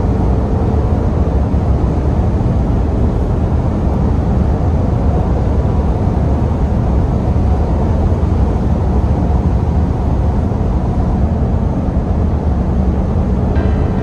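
Steady road and wind noise from a Porsche Cayenne on the move: an even, low rumble with hiss above it, with no distinct engine note or tyre squeal.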